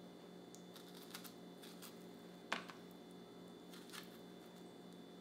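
Faint clicks and a few soft knocks of a knife on a cutting board as strawberries are cut up, the loudest knock about two and a half seconds in, over a low steady hum.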